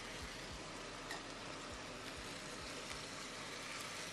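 Chicken pieces sizzling in olive oil in a steel frying pan, stirred with a spatula; a light click about a second in.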